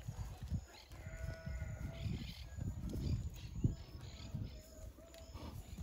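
A farm animal calling several times, with low rumbling noise underneath.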